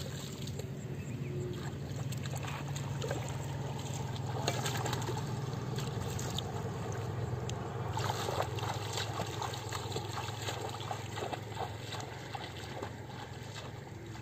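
Shallow floodwater splashing and sloshing as it is scooped by hand and waded through, many small splashes one after another, with a steady low rumble underneath.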